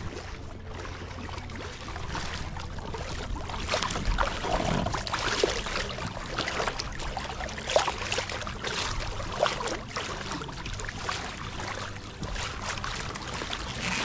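Lake water splashing and lapping irregularly against the hull of a sailboat moving through the water, over a steady low rumble.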